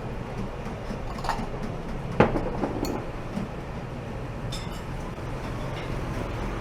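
Clinks and knocks of bowls and utensils as boat noodles are prepared at a street stall, the loudest a sharp knock about two seconds in, over a steady low rumble of traffic.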